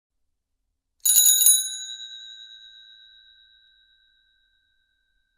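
Chinese bicycle bell rung once in a quick rattle of several strikes, lasting about half a second, about a second in; its clear ring then fades away over about three seconds.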